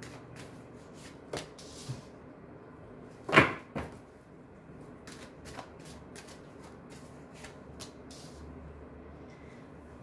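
Tarot cards being shuffled by hand and laid out on a table mat: a run of soft card flicks and clicks, with one much louder slap about three and a half seconds in.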